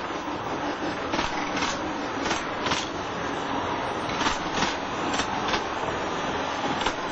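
Narrow-gauge railway carriages rolling past close by: a steady rattle and rumble of wheels on the track, with irregular sharp clicks.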